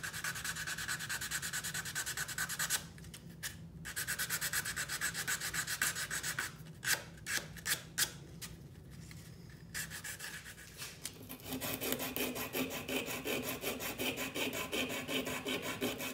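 Hand sanding of a small carved wooden lure body: quick back-and-forth rubbing strokes, several a second, in runs broken by short pauses, turning coarser and fuller in the last few seconds.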